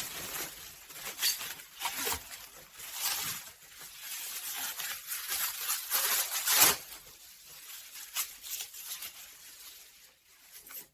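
Parcel packaging being torn open and crinkled by hand, in irregular rustling, crackling bursts. It is loudest about two-thirds through and dies away near the end.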